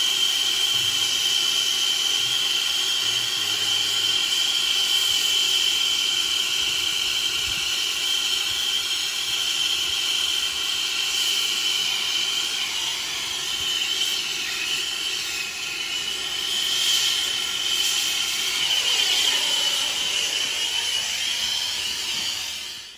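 Hand-held brazing torch burning steadily with a loud hiss and a steady high tone as its flame heats a copper refrigerant line-set joint; the tone wavers a little near the end.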